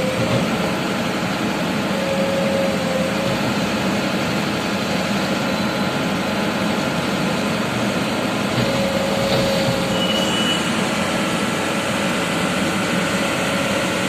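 Mahindra EarthMaster VX backhoe loader's diesel engine running steadily, heard from inside the cab, with a faint whine that comes and goes over it.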